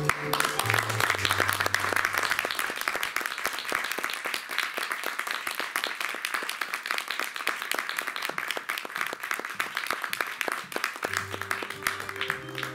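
Audience applauding, dense clapping that slowly thins out. A low, held music note sounds under it briefly about a second in and again near the end.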